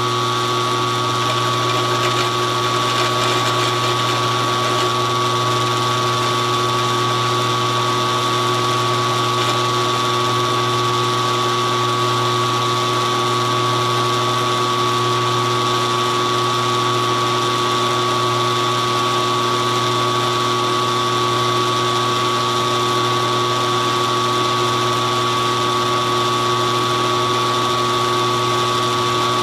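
Benchtop mill-drill running steadily, its milling cutter taking a slow final pass across a cast aluminium bender frame: a steady motor hum with a constant whine over the cutting noise.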